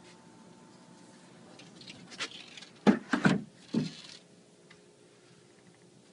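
A short run of knocks and clunks with some scraping, about two to four seconds in, as a paneled door or cupboard door is handled; the rest is a faint low room hum.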